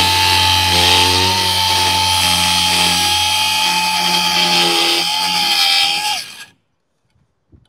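Cordless angle grinder with a cutting wheel cutting through steel on a rotary cutter's slipper clutch: a loud, steady high whine over the grinding. The grinder stops about six seconds in.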